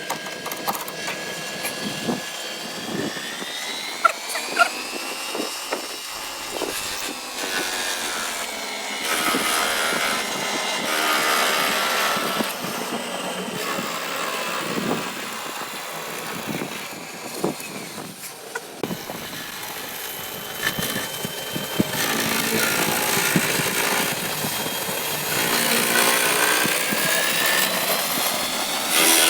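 Machine tool cutting valve pockets into a Nissan L20 piston crown: a motor whine that glides slowly up and down in pitch, with rougher cutting noise at times and a few sharp clicks.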